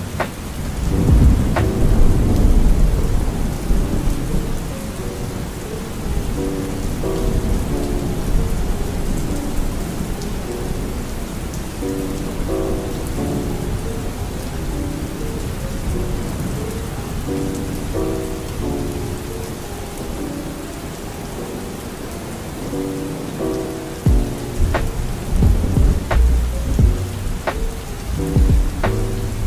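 Steady rain falling, with heavy rumbles of thunder about a second in and again near the end, over soft lo-fi music of short repeated chords.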